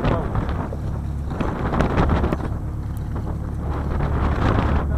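Steady low rumble of a charter fishing boat's engine, with wind buffeting the microphone.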